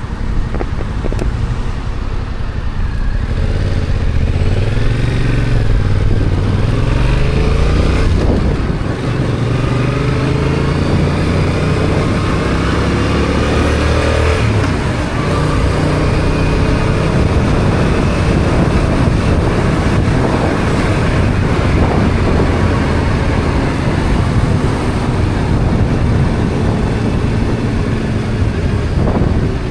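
Yamaha XSR700's 689 cc parallel-twin engine with its stock exhaust, pulling under way: the pitch climbs and drops back several times as it accelerates and shifts gear, then holds fairly steady.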